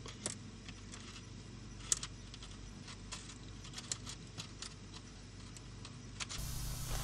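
Light, scattered clicks and taps of wires and a soldering iron being handled while cables are soldered onto a lead. A steady low hum comes in near the end.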